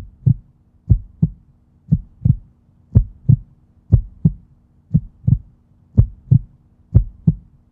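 A heartbeat sound effect: pairs of deep thumps, about one pair a second, over a low steady hum.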